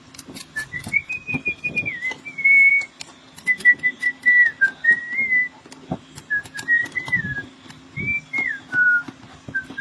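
A person whistling a meandering tune in short phrases, with scattered sharp clicks and taps and a faint steady hum underneath.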